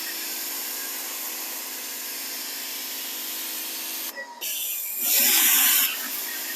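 Pressure washer spraying, a steady hiss of water over the hum of its motor. The spray cuts out briefly about four seconds in, then comes back louder for about a second.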